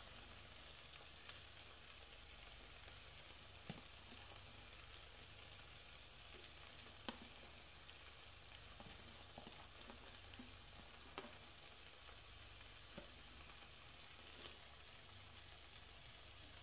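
Faint, steady sizzle of cabbage sabzi in a frying pan, with a few soft clicks of a wooden spatula against the pan.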